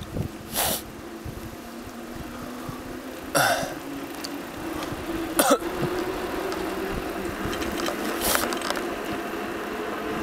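A person breathing out hard in short puffs, four times spread over several seconds, from the effort of cycling on a mountain road. A steady low hum runs underneath.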